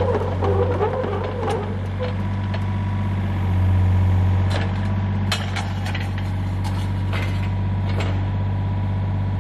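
Yanmar mini excavator's diesel engine running steadily, swelling louder for about a second near the middle, with scattered sharp clanks as the arm and grapple work.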